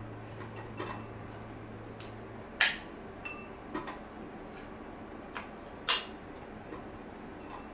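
Small Nerds candy pieces dropped one at a time into a wine glass, making sparse light ticks, with two louder clicks about two and a half and six seconds in.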